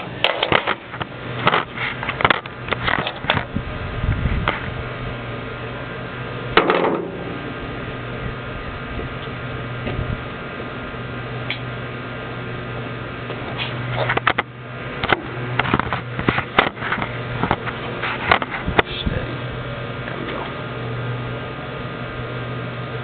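Ford F100's 289 V8 idling, heard from inside the engine compartment with the right exhaust pipe disconnected, as a steady low hum. Scattered knocks and clatters come over it, the loudest about seven seconds in and a cluster between about fourteen and nineteen seconds.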